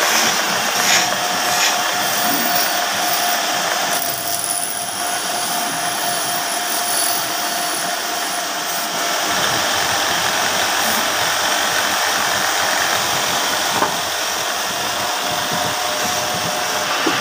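Belt-driven wood lathe running steadily with a faint steady whine, while a hand-held piece is pressed against the spinning wooden cot leg.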